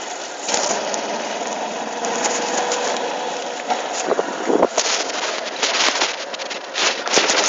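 Handling noise from a phone: cloth rubbing and scraping over the microphone, with knocks that come thicker and louder in the second half, over a steady background rumble.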